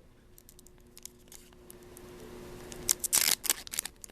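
Foil booster-pack wrapper being handled and opened: soft rustling and clicks build up, then a loud crackling tear of the foil about three seconds in.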